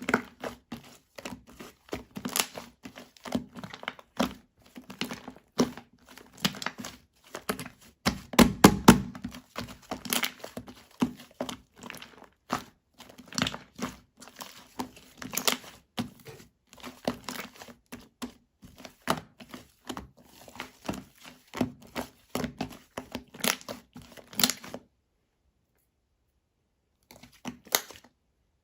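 Irregular crinkling and rustling of something being handled, with a heavier burst about eight seconds in. The sound cuts off abruptly near the end, with one short crinkle after.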